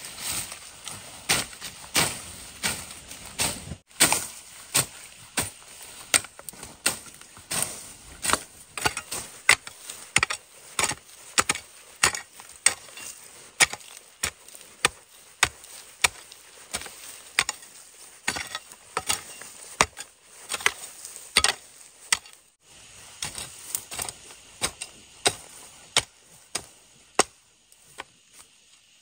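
Long-handled hoe chopping into soil: its blade strikes the ground in repeated sharp chops, about one to two a second.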